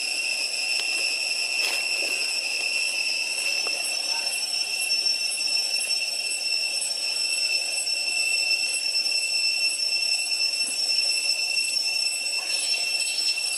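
Cicadas droning in a steady, high-pitched whine that holds an even level throughout.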